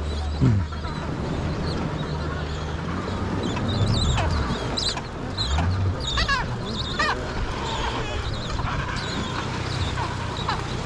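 Adelie penguins calling across the colony, a jumble of short squawks and higher wavering calls, busiest from about four to seven seconds in, over a low steady hum. A brief low thump sounds about half a second in.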